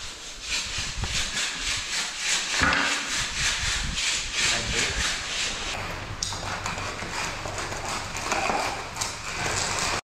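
Steel hand groover scraping back and forth along a joint in a fresh concrete slab, a rhythmic rasp of about three strokes a second that evens out after about six seconds.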